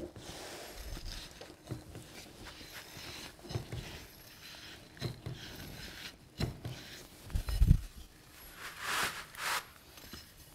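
Pry bar being worked under a door on a doormat while a new integral door sweep is pressed into place: scattered scrapes, light knocks and low thumps, the loudest thump about seven and a half seconds in, then a short rasping scrape around nine seconds.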